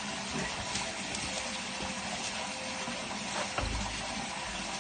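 Steady rush of running water through the drain system, with a dull knock about three and a half seconds in.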